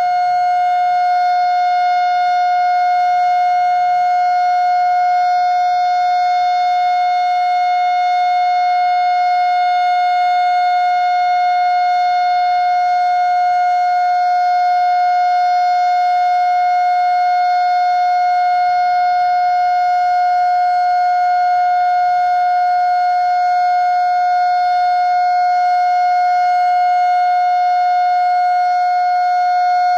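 Darley Model 2 electromechanical tornado siren sounding one steady tone at full speed, holding its pitch throughout, during a test.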